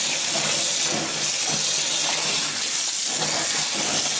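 Kitchen tap running steadily into a ceramic sink onto wet, freshly dyed ripstop nylon as it is rinsed by hand to wash out the last of the dye.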